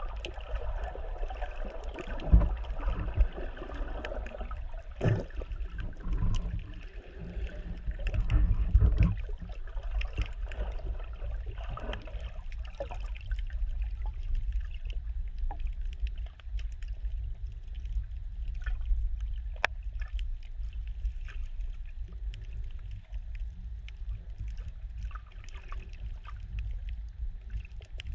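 Muffled underwater sound picked up through a GoPro's sealed waterproof housing: a steady low rumble of water moving around the case, with louder swooshes and a few knocks in the first half. After that it settles to a quieter rumble with scattered faint clicks.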